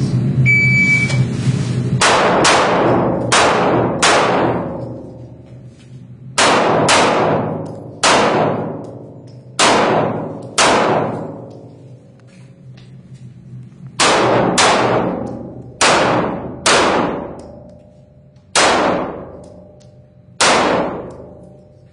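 An electronic shot-timer beep, then about fifteen handgun shots fired in pairs and singles through an IPSC course of fire. Each shot has a long echoing tail.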